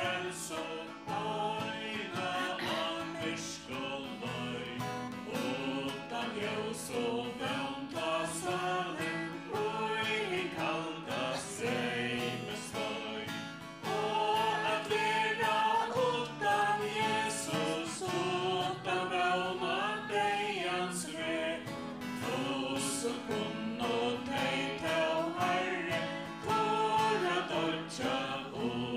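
A small worship group of a man and two women singing a hymn in Faroese into microphones, accompanied by keyboard and acoustic guitar. The singing gets louder about fourteen seconds in, as the chorus begins.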